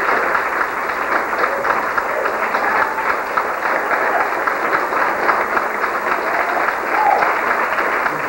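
Audience applauding: many hands clapping in a dense, steady patter, with a few voices faintly calling out over it.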